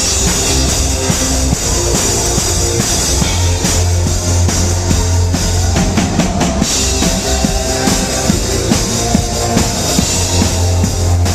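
Rock band playing live through a stage PA, the drum kit to the fore with kick drum and dense hits over a steady low bass line.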